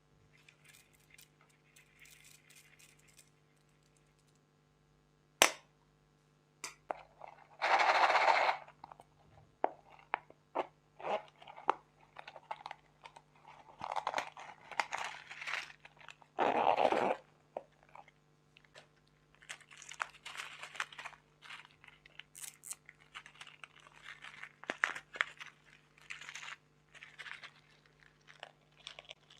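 Slime being squished and kneaded by hand, with irregular wet crackles and clicks. There are two longer, louder squelches, about eight and seventeen seconds in, and a faint steady hum underneath.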